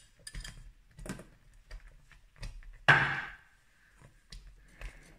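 Apricot puree tipped from a glass container into a stainless steel saucepan with a whisk in it, with scattered soft knocks and clinks of glass and metal. One sharper knock with a brief ring comes about three seconds in.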